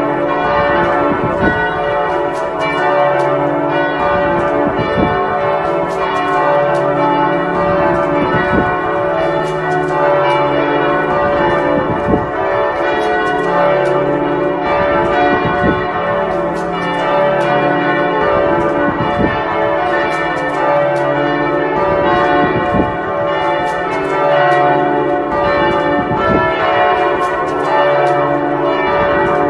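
Several church bells ringing together in a full peal, their clapper strikes falling irregularly and overlapping, each stroke ringing on so that the tones blend into a continuous humming wash.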